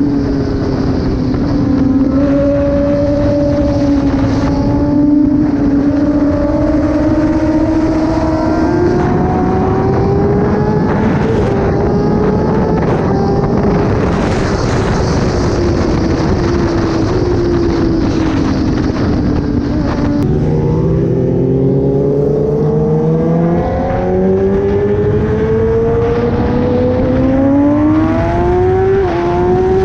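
Kawasaki ZX-10R inline-four with an SC-Project aftermarket exhaust, running under way. The engine note holds, then climbs and dips with gear changes. It falls away about two-thirds of the way through, then climbs again through several upshifts.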